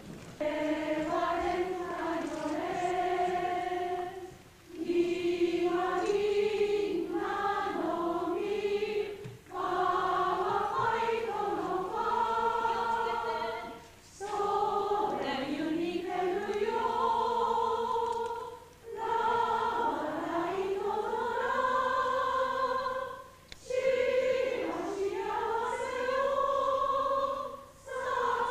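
A group of voices singing a slow melody together without accompaniment, in phrases of about four seconds with short breaths between them.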